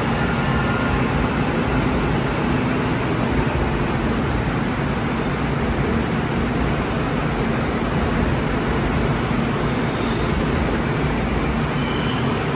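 Steady rushing noise with a low hum from a Seoul Subway Line 4 electric train at the platform, holding level without rising or falling.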